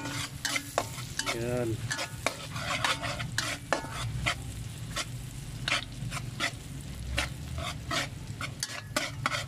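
Metal spatula scraping and tapping against a wok, many irregular strikes, while chopped onion and garlic fry in oil with a sizzle underneath.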